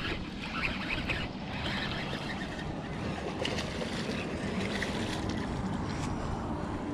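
Steady wind noise on the microphone over lapping water, with a few faint clicks near the start as a baitcasting reel is wound in.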